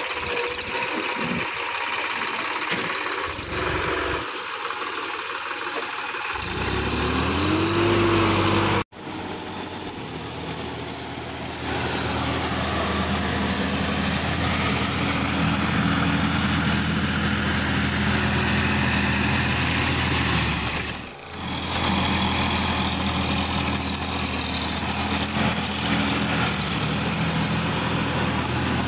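Sonalika DI-50 RX tractor's diesel engine revving up once, then running steadily under load while it drives a rotavator through wet paddy mud for puddling.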